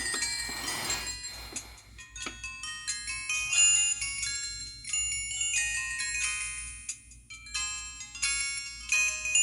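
A downloaded ringtone playing through a Samsung SGH-T629 flip phone's small speaker: a melody of quick, high, separate notes, with a short rustle of noise in the first second or so.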